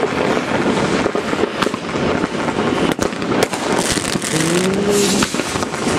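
Fireworks going off all across a city: a continuous din of crackling and banging rockets and firecrackers from many directions. A brief low tone rises and then holds for about a second, some four and a half seconds in.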